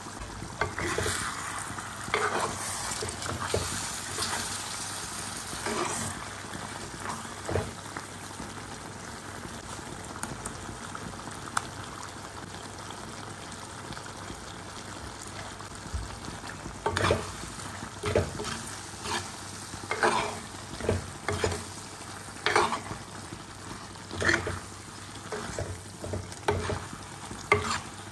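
Chicken curry sizzling and simmering in a clay pot, a steady hiss throughout. About halfway through a metal ladle starts stirring it, scraping and knocking against the pot in quick, irregular strokes.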